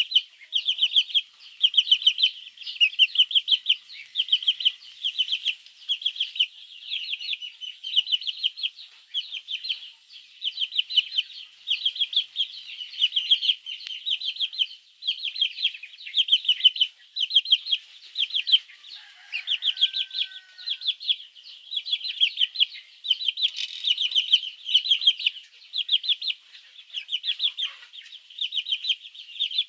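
Baby chicks chirping: loud, high-pitched peeps in quick runs of about a second, one run after another without a break. These are chicks calling for the mother hen.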